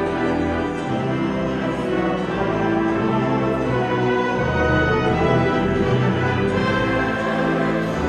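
Choir and orchestra performing slow, sustained chords.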